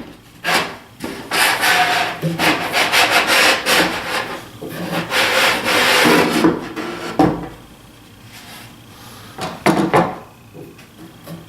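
A wooden shelf being worked out of its snug fit in a cabinet case: wood scraping and rubbing against wood for several seconds, then a few sharp knocks.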